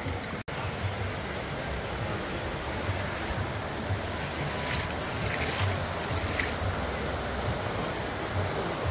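River water rushing in a steady, even wash, with a few short splashes about halfway through. The sound cuts out for an instant just after the start.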